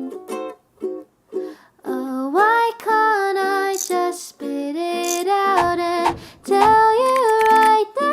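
Background song: plucked ukulele chords, joined about two seconds in by a wordless female vocal line with gliding held notes.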